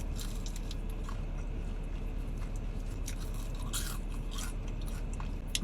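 Close-up chewing and biting on fried chicken, with scattered crisp crunches from the breading, over a steady low hum.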